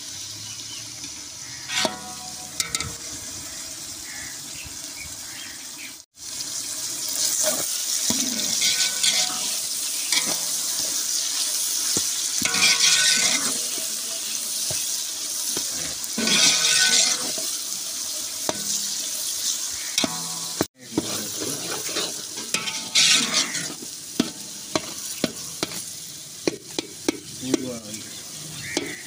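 Onion, green chilli and tomato masala frying and sizzling in ghee in a large metal pot, stirred with a steel ladle. The sizzle grows louder in stretches as the mixture is stirred.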